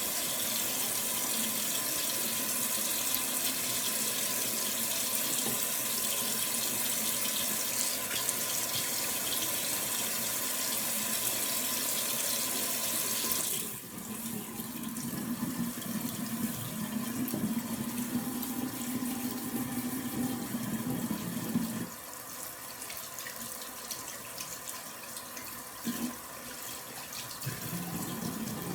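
Water running from a tap into a sink while hair is being wetted under it. The hiss is steady at first and turns lower and duller about halfway through, then quieter again later, with a short knock near the end.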